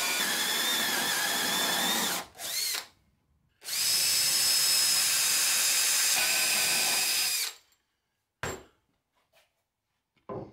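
Cordless drill boring into plywood. It runs steadily with a Forstner bit for about two seconds and briefly again, then after a short pause runs for about four seconds with a step bit. A single sharp tap follows near the end.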